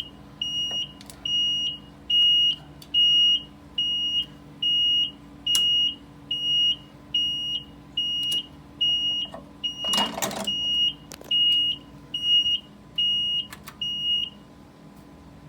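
Simplex 2120 fire alarm panel's trouble beeper, a high single-tone beep about twice a second, stopping about fourteen seconds in; the owner puts the trouble down to the panel's failing printer. A brief louder noise about ten seconds in.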